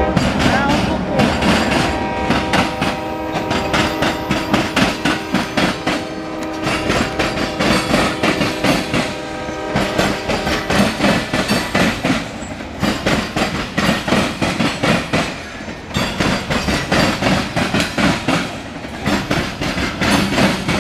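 Freight cars of a passing Norfolk Southern mixed freight train, flatcars and then covered hoppers, with their steel wheels clattering rapidly over rail joints and crossing diamonds. A train horn chord sounds over the clatter and fades out about ten seconds in.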